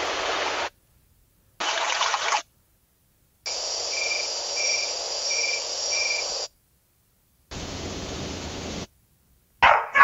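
A run of short AI-generated nature sound-effect previews, each starting and stopping abruptly with silence between: a second of rushing ocean-wave noise, another brief rush of noise, about three seconds of insect chirping with a steady high buzz and a chirp repeating about one and a half times a second, then a second and a half of deep rumbling noise. A dog bark starts near the end.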